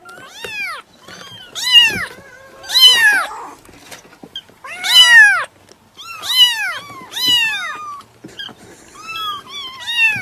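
A domestic cat meowing over and over: about eight separate meows, each rising and then falling in pitch, some long and loud, others short and softer, with a quick run of small meows near the end.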